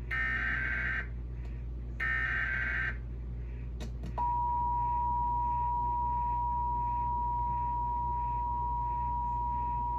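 Emergency Alert System SAME header: two one-second bursts of warbling digital data tones, a brief click, then about four seconds in the steady two-tone EAS attention signal starts and holds, announcing a Required Monthly Test. A low steady hum sits underneath.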